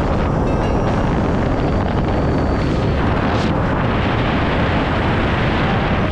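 Steady wind rush on the microphone over a motorcycle's engine and tyre noise while riding at highway speed, with a brief swell of hiss about three and a half seconds in.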